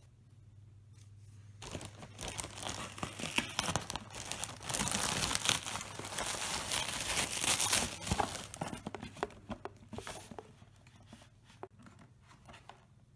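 Plastic mailer bag being torn open and its bubble-wrapped contents pulled out, plastic crinkling and crackling. It starts about a second and a half in, is loudest in the middle, and dies down to light rustling near the end.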